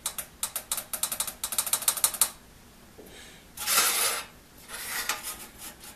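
Steel saw-set gauge (a "spider") ticking and rocking against the teeth of a one-man crosscut saw blade as it is checked for set. A rapid run of small metal clicks lasts about two seconds, then comes a short scrape of metal sliding on the blade and a fainter one after it.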